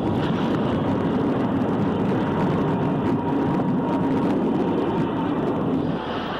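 Electric locomotive-hauled train running into the station, a steady heavy rumble with a faint steady whine above it. It eases off slightly about six seconds in.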